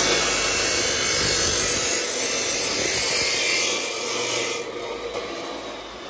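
Hercules 15-amp abrasive cut-off saw grinding through a steel exhaust pipe: a loud, hissing grind that eases about two seconds in and stops a little before the end as the cut goes through. The motor then winds down with a faint falling whine.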